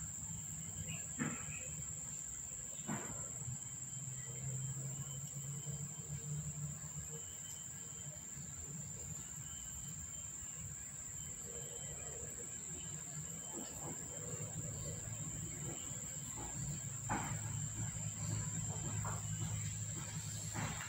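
Steady, unbroken high-pitched insect drone, with a low steady hum underneath and a few faint clicks.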